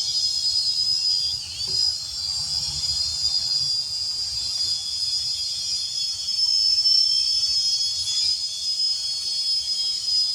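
Syma X440 mini quadcopter's small motors and propellers whining steadily at a high pitch while it flies, the pitch dipping briefly about a second and a half in and otherwise wavering slightly.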